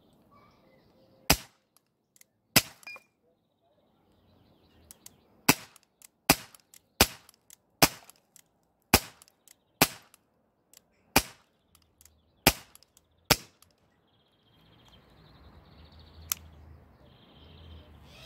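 Umarex Legends P08 Luger CO2 BB pistol, a non-blowback air pistol, firing about eleven sharp shots, singly and in quicker runs a little under a second apart. The shooting stops about 14 seconds in, leaving faint low background noise and a few small ticks.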